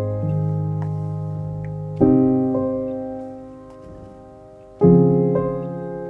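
Background piano music: slow chords, each struck and left to fade, one about two seconds in and another near the end.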